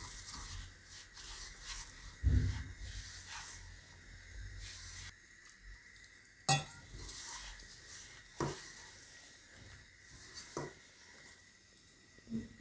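Hands mixing and kneading damp, crumbly jowar (sorghum) flour in a stainless steel bowl: soft rustling and squishing of the dough, with a handful of short knocks against the steel bowl, the strongest about two seconds in.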